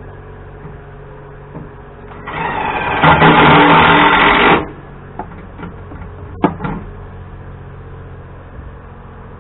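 A handheld power drill runs in one loud burst of about two and a half seconds, coming up to speed and stopping abruptly, followed by a few short sharp clicks.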